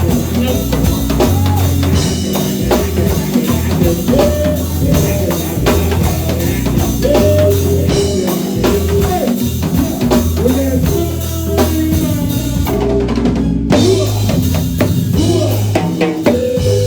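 Live band playing: a drum kit with kick and snare keeps a steady beat under a bass line, with a melodic lead line that bends in pitch over the top.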